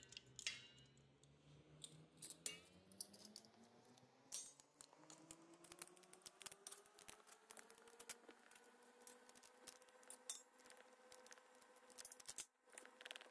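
Near silence, broken by faint, scattered clicks of metal tongs against a stainless steel bowl as fish fillet pieces are moved about in a milk marinade.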